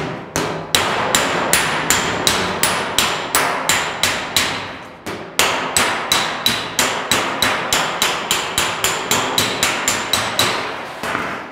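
Panel-beating hammer striking a metal car bonnet over a dolly held underneath, in a steady run of about three sharp, ringing blows a second with a brief break about five seconds in. The hammering is on the welded seams, hitting quite hard to stretch out the metal that the welds shrank and to take the stress out of them.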